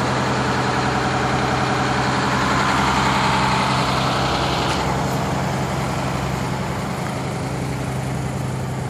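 1988 Crown Coach school bus's diesel engine idling steadily, with a constant deep hum.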